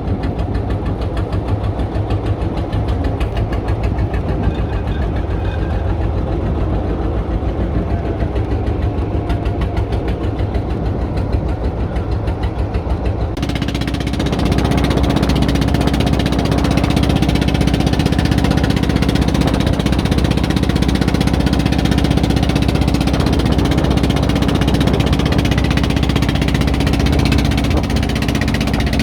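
Boat engine running steadily with a rapid knocking beat. About halfway through it changes suddenly to a louder, fuller running note with a steady hum.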